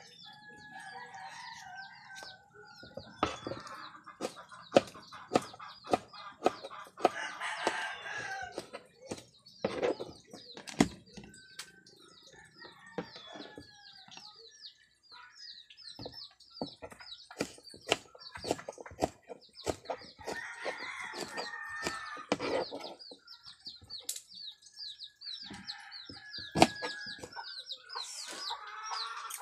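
A kitchen knife chopping eggplant on a plastic cutting board in sharp, irregular knocks. Chickens cluck and crow in several bouts of one to two seconds, and a small bird chirps rapidly and high throughout.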